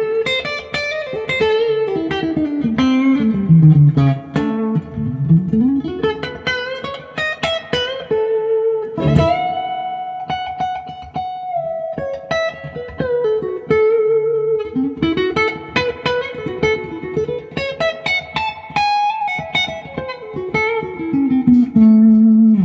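Duesenberg Starplayer Special electric guitar played on its neck pickup in mid split setting, with a compressor: single-note melodic lines with descending runs and sustained notes shaken with vibrato, ending on a held low note.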